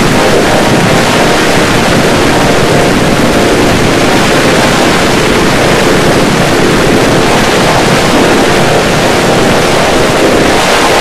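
Loud, steady rush of heavily distorted digital noise with faint held tones buried in it: audio mangled by stacked video-editor effects.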